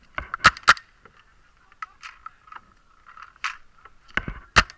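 Paintball markers firing sharp pops: a quick pair about half a second in and another pair near the end, with faint scuffing between.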